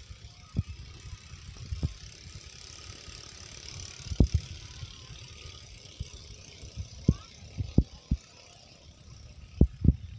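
Small boat engines running steadily in the distance under a hiss, broken by about ten sharp, short low thumps, the loudest near four seconds in and again near the end.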